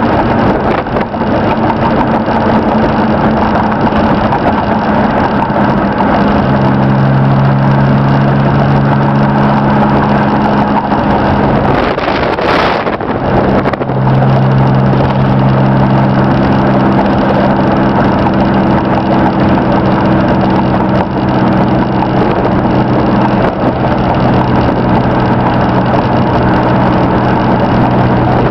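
Engine of a 1992 Chevy S10 pickup, its 2.8 V6 pulling steadily at cruising speed, with road noise, heard from inside the cab. The engine sound breaks off briefly about halfway through, then carries on.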